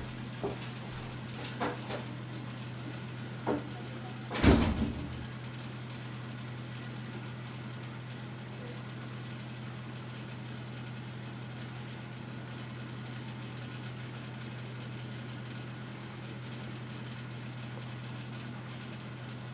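A steady low machine hum from a household appliance. A few light clicks come in the first few seconds, and one loud knock about four and a half seconds in.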